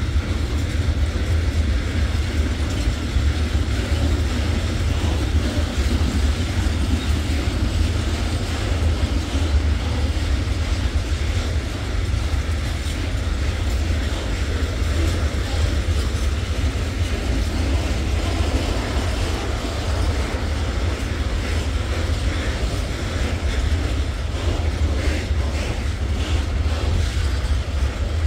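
Freight wagons, tank cars and sliding-wall box wagons, rolling past on the rails: a steady, unbroken low rumble of wheels on track.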